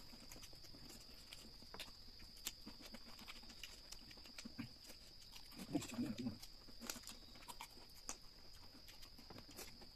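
Eating sounds from a mukbang: scattered small clicks of chewing, lip smacks and bites into spicy chicken feet, with a brief low murmur about six seconds in. A faint steady high-pitched tone runs underneath.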